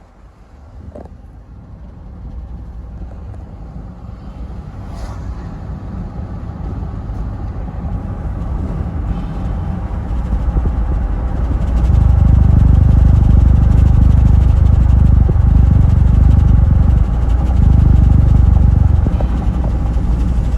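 Motor vehicle driving, its engine and road rumble growing steadily louder as it picks up speed. The rumble is heavy and loud from a little past halfway.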